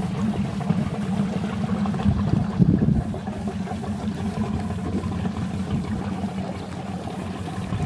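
Jeanneau Eau Claire 930 canal cruiser's 38 hp engine running at low speed as the boat manoeuvres slowly, a steady low rumble that swells slightly a couple of seconds in.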